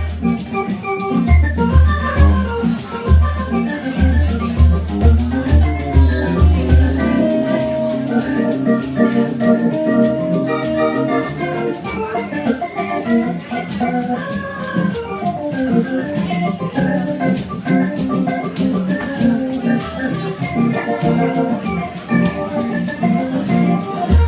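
Live band playing an instrumental stretch of a southern soul blues song: organ chords over drums with a steady run of cymbal ticks. The deep bass notes drop out about seven seconds in, leaving organ and drums.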